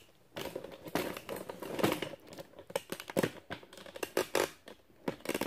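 Stiff kraft paper pattern pieces rustling and crinkling as they are handled, with a scatter of light taps and clicks.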